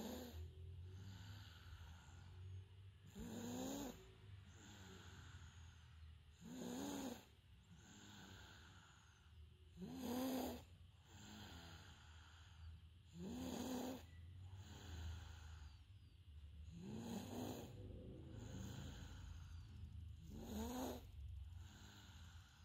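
Someone snoring in a nap: a short pitched snore about every three and a half seconds, with softer breathing between.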